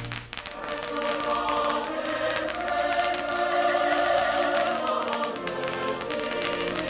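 Choral music: a choir singing long, sustained chords, with light clicks behind it.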